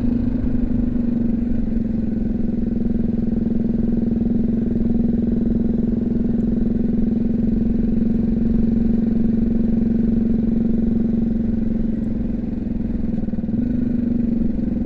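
BMW G310GS's single-cylinder engine running at a steady, unchanging pitch while riding, with low wind rumble, heard through a microphone inside the rider's helmet.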